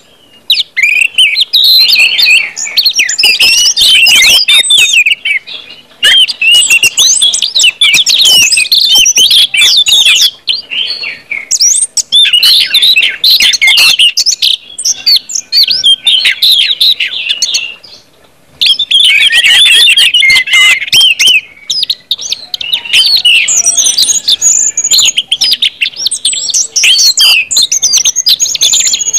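Orange-headed thrush song: loud, rapid, varied warbling and whistled notes in the full song that keepers call ngeplong, delivered in phrases of several seconds with brief pauses between them.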